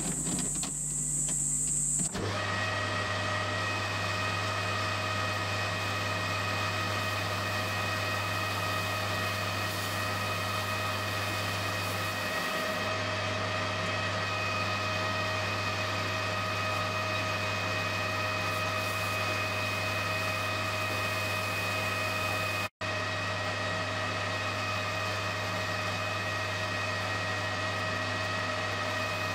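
Metal lathe running while turning an aluminium alloy spinner blank: a steady hum with several steady whining tones. A different, hissier sound fills the first two seconds, and the sound drops out for an instant about two-thirds of the way through.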